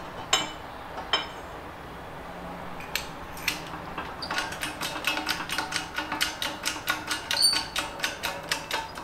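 Hydraulic bottle jack of a shop press being hand-pumped to press a wheel stud out of a hub: metal clicks as the hub is set in place, then from about four seconds in a quick run of clicking from the jack's pump handle and linkage.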